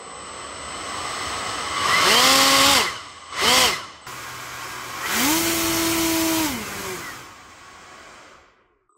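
A 3D-printed ducted fan on a brushless motor, throttled up and down by hand: a high whine with a rush of air that surges three times, its pitch gliding up at each burst of throttle and falling back as it slows, the middle burst brief.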